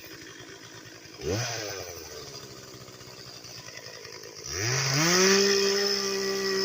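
Two-stroke gasoline chainsaw running low, blipped once a little over a second in. About four and a half seconds in it is revved up again and held at a steady high speed.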